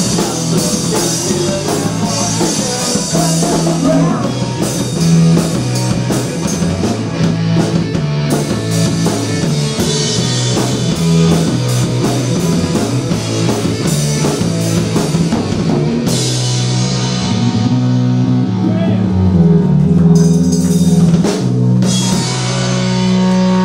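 Live rock band playing loud, with electric guitars and a drum kit. About two-thirds of the way through, the busy drumming drops back and the guitars hold long ringing chords, broken by a few cymbal crashes.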